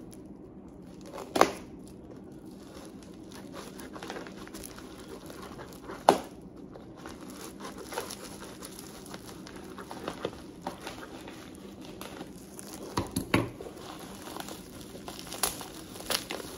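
Plastic-wrapped bubble-wrap parcel being handled and cut open with scissors: crinkling and rustling of the plastic, broken by a few sharp clicks, the loudest about a second and a half in and about six seconds in.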